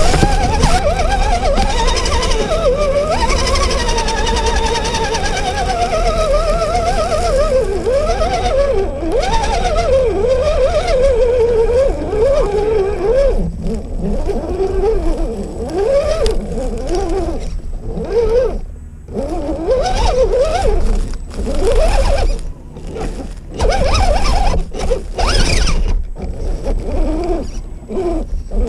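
Electric motor and gearing of a 1/10 scale RC rock crawler whining as it crawls over roots and leaf litter, the pitch rising and falling with the throttle and cutting out briefly several times in the second half.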